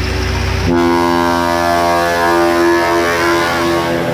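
Multi-tone 'telolet basuri' bus air horn sounding a held chord, switching to a new set of notes about 0.7 s in and dying away near the end, with a bus engine running low underneath at the start.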